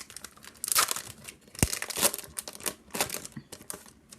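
Foil booster pack wrapper of Yu-Gi-Oh! cards being torn open and crinkled, a run of irregular crackly rustles.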